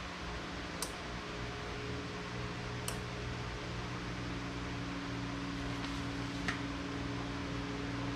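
Steady fan-like whir with a low hum underneath, broken by three faint clicks.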